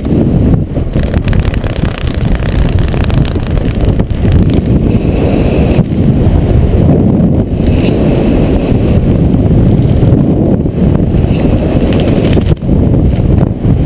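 Loud wind buffeting the microphone during descent under an open parachute: a steady, low rumble with brief dips.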